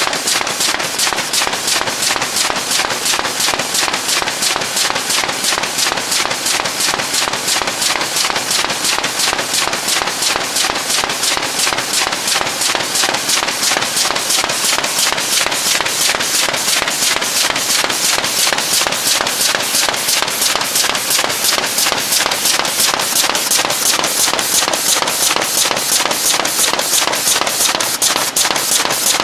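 Signature FG folder-gluer running cardboard six-bottle carrier blanks through, with a fast, even rhythm of sharp knocks, several a second, over steady machine noise.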